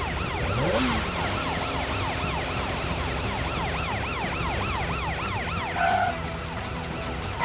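Police car siren in a fast yelp, its pitch rising and falling about three times a second.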